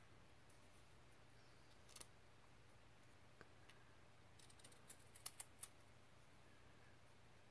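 Small scissors snipping through a fabric number tag on its paper backing: faint sharp snips, a couple about two seconds in, then a quick run of them from about four and a half to six seconds in.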